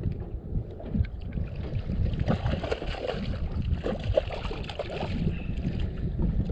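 Wind buffeting the microphone in a steady low rumble, with water slapping against a fishing boat's hull.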